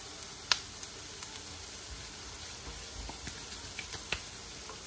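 Diced onion, carrots and celery sizzling steadily in oil and butter in a cast-iron skillet. A sharp click about half a second in, and a fainter one near the end.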